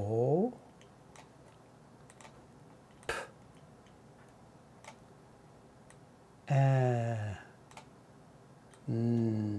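A man's voice sounding out a word one speech sound at a time, each sound drawn out and held, with long pauses between. A single sharp click about three seconds in.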